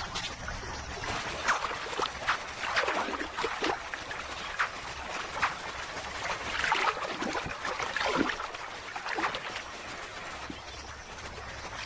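Water splashing and trickling as crocodile hatchlings swim in shallow river water, in many short, irregular splashes.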